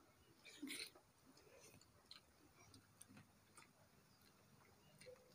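Near silence with a few faint, scattered clicks of eating utensils against bowls as noodles are eaten, and a brief soft hiss about half a second in.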